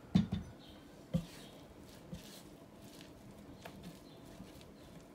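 Silicone spatula stirring wet, sticky pizza dough in a glass bowl: soft squelching and scraping, with a few dull knocks in the first second or so.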